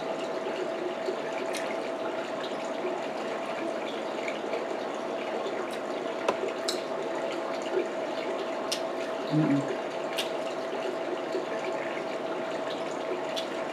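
Scattered sharp clicks from king crab legs being picked apart and eaten, over a steady background hiss with a faint even hum. About nine and a half seconds in comes a brief low 'mm' from the eater.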